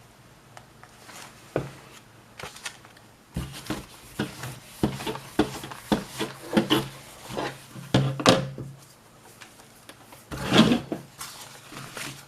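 Irregular rustling, rubbing and light knocks as hands work a sheet of clear self-adhesive book-cover film (contact), busiest from about three seconds in.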